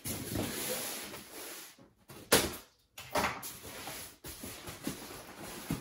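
Polystyrene foam packaging box being handled and pulled open: foam scraping and rubbing, with a sharp knock about two seconds in and another about a second later.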